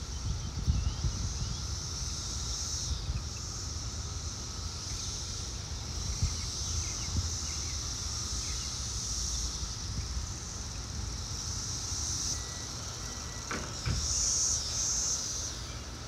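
Chorus of Brood X periodical cicadas: a steady, high-pitched drone that swells briefly near the end, over a constant low rumble.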